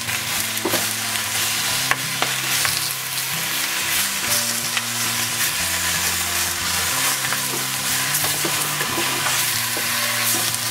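A tied pork leg roll, leek greens, ginger and garlic sizzling in hot oil in a stainless pressure-cooker pot while sugar is stirred in with a wooden spatula, which scrapes and knocks against the pot now and then. The sugar is being melted to caramelize and colour the meat.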